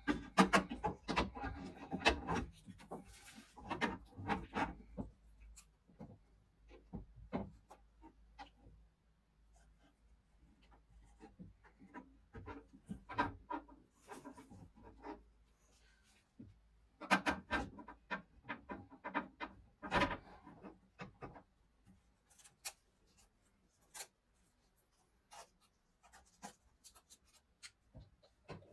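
Window regulator parts being handled and fitted inside a car door: plastic and metal parts rubbing, scraping and clicking against the door cavity in irregular bursts, with quieter stretches between.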